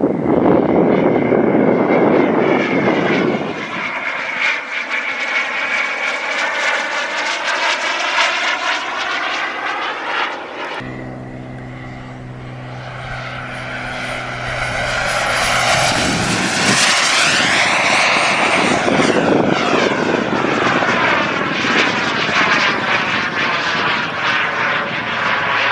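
Radio-controlled model jet making fly-by passes: a high whine over a rushing jet noise that swells as it comes by and fades away. There is an abrupt break about eleven seconds in, then a second pass builds and peaks at around seventeen seconds.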